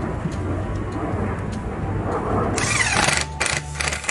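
Cordless drill driving screws through a small L-bracket into merbau hardwood. It runs in one long burst about two and a half seconds in, then in several short bursts near the end.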